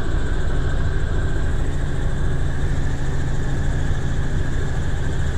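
Helicopter in flight, heard from inside the cabin: a steady, unbroken drone of rotor and engine with a strong low hum.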